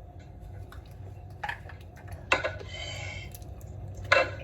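A few sharp clinks and knocks of glasses being handled as shots are drunk, over a steady low background hum.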